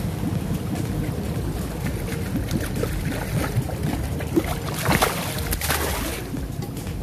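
A hooked seven-striped barb (Jullien's golden carp) thrashing and splashing at the water's surface as it is drawn to the bank, with the sharpest splashes about five seconds in, over a steady low rumble of moving water and wind.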